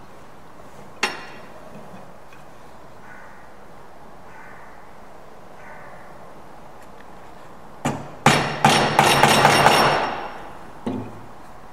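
A pointed steel marking tool knocking against a square pine workpiece: one sharp tap about a second in, then a loud quick run of sharp taps with a scraping rasp at about five a second for some two seconds, and one last knock near the end.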